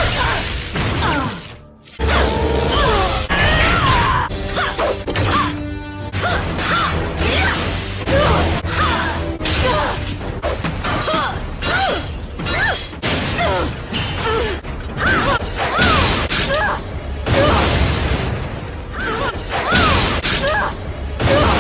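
A quick string of a female animated robot character's short grunts, yelps and cries of effort, cut between clanks, thuds and mechanical sound effects of a fight, over a steady music score.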